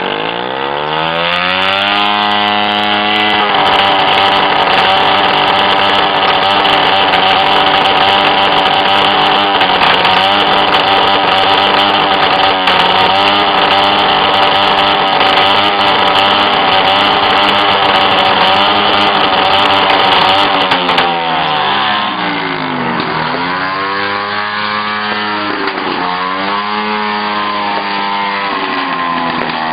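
Small motorcycle engine revved hard to make the exhaust spit flames: it climbs over the first few seconds and is held at high revs for about seventeen seconds, then drops back and is blipped up about three times.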